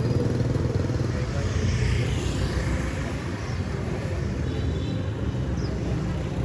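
Street traffic: a steady low engine rumble with motorbikes riding past.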